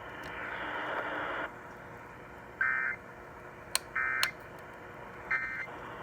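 A second and a half of radio hiss, then three short bursts of screechy digital data tones a little over a second apart. These are the Emergency Alert System end-of-message (EOM) code that closes the flash flood warning.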